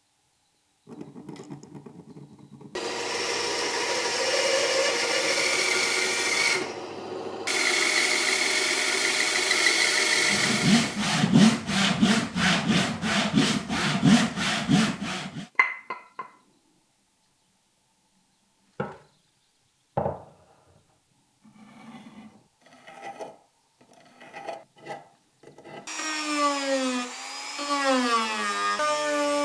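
Woodworking on a new ash handle. A power tool runs steadily for several seconds, then a hand tool is worked back and forth on the wood at about three strokes a second. A few scattered knocks follow, and near the end a small motor tool runs with its pitch sweeping up and down.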